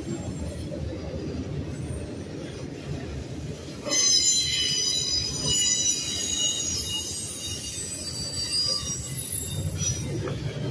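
Double-stack intermodal freight cars rolling past at speed with a steady low rumble. About four seconds in, a loud, high-pitched squeal of steel wheels on rail starts and rings on over the rumble.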